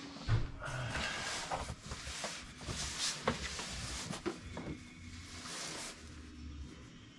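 Household items and packing being handled and moved: scattered knocks and clicks with rustling in between.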